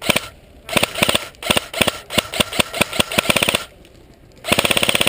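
Airsoft gun firing: a string of quick shots, faster toward the end, then after a short pause a rapid full-auto burst near the end.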